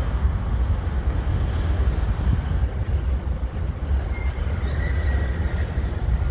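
Coal hopper cars of a CSX freight train rolling past with a steady low rumble of wheels on rail. A faint high wheel squeal comes in about four seconds in.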